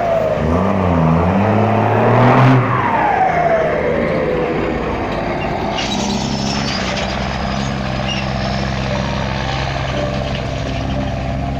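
Heavy truck's diesel engine running. Its pitch swings up and down with a falling whine in the first few seconds, then it settles into a steady low drone from about six seconds in.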